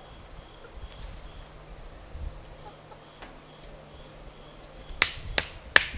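A claw hammer driving a thin wooden stake into the ground: a quick run of sharp knocks about a second before the end, over a steady faint insect drone.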